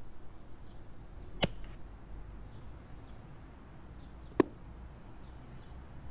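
Two sharp shots from an air rifle, about three seconds apart, the first with a brief ringing tail.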